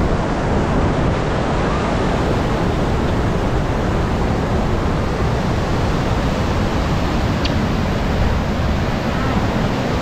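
Niagara Falls roaring close at hand: the steady, unbroken rush of a huge volume of falling water.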